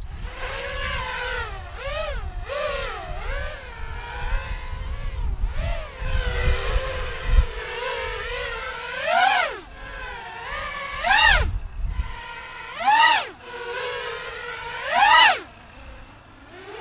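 Flypro XJaguar racing quadcopter's motors and propellers whining, the pitch wavering with throttle as it flies. In the second half there are four hard throttle punches about two seconds apart, each sweeping the whine sharply up and back down. A low rumble runs under it for most of the first twelve seconds.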